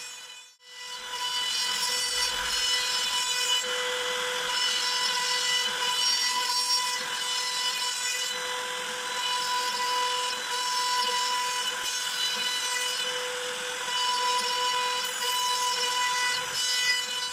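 CNC router's compact trim-router spindle cutting a lattice pattern through 9 mm plywood: a steady high whine with overtones over the hiss of the bit cutting the wood. There is a short gap just after the start.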